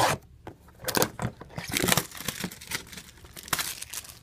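Hands handling and turning over a cardboard trading-card box: irregular rustling and scraping with a few sharper knocks against the table.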